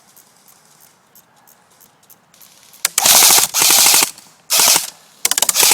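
Airsoft rifle firing on full auto: several short bursts of rapid clicking shots, starting about three seconds in.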